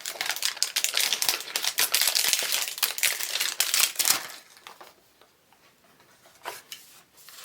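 Toy packaging crinkling and rustling as it is handled and opened, dense for about four seconds, then dropping to faint handling with a couple of soft clicks near the end.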